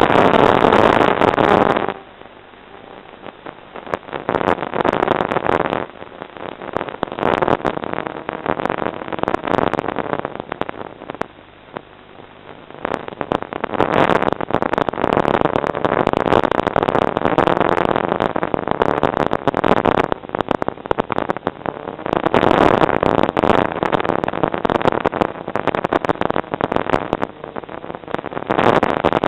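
FPV model aircraft's motor and propeller running, swelling and fading with the throttle, with frequent crackles in the sound.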